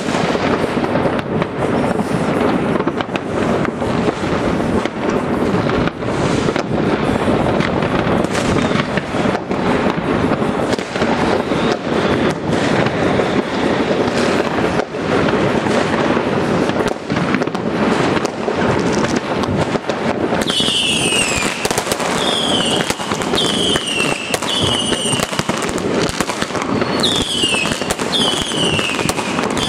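Fireworks and firecrackers going off all over a city: a continuous dense crackle of pops and bangs at many distances. About two-thirds of the way in, a run of short high whistles, each falling in pitch, comes in about once a second.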